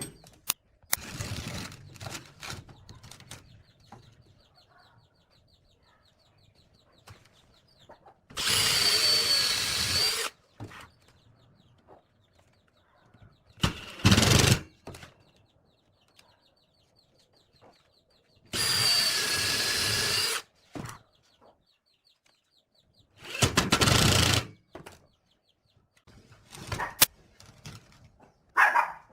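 A hand-held power tool runs in short bursts: two steady runs of about two seconds each, with shorter bursts and knocks of handling in between.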